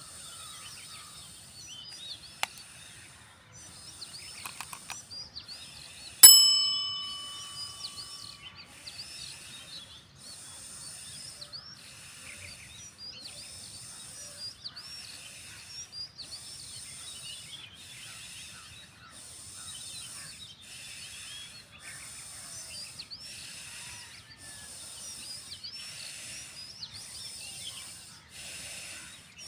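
Forceful breathing in and out through the nose, about one stroke a second: bhastrika (bellows breath) pranayama. Birds chirp throughout. About six seconds in, a single loud bell-like ding rings out and fades over a couple of seconds.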